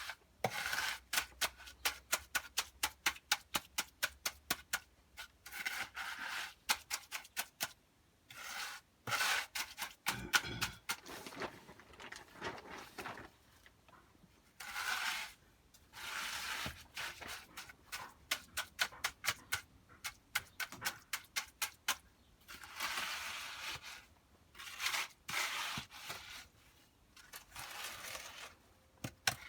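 Hand tools working wet concrete in formwork: runs of quick sharp taps, about five a second, alternating with rasping scrapes as the mix is spread and worked.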